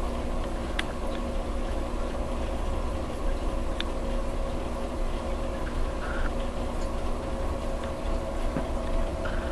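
Steady hum of reef aquarium equipment with water bubbling and trickling, and a few faint clicks.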